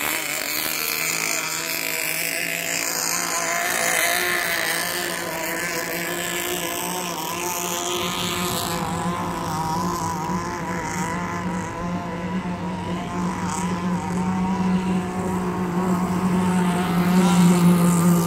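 Engines of radio-controlled model racing boats running flat out, a wavering high-pitched engine note; one boat comes close by about halfway through and the engine grows louder toward the end.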